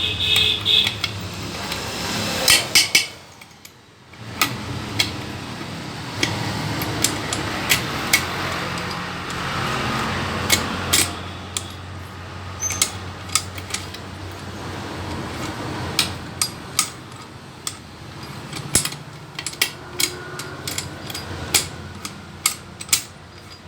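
Metal hand tools and engine parts clinking, tapping and knocking during motorcycle engine work: many sharp, irregular clicks over a steady background hum.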